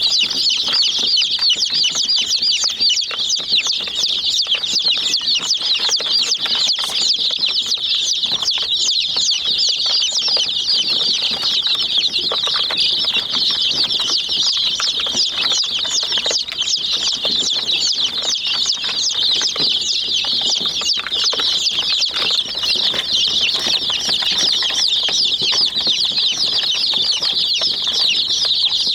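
A group of domestic chicks peeping nonstop, many high-pitched chirps overlapping with no break.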